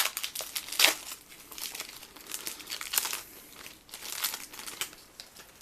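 Magic: The Gathering booster pack's foil wrapper crinkling as it is torn open and handled, with a few sharper crackles about a second and three seconds in.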